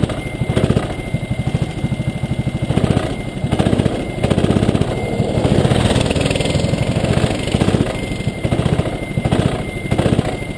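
Rental kart's single-cylinder engine running at low speed close up, its firing pulses quick and even, rising and easing off in swells as the throttle is worked.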